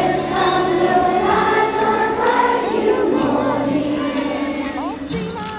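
A crowd of children cheering and chanting for the swimmers, many voices at once.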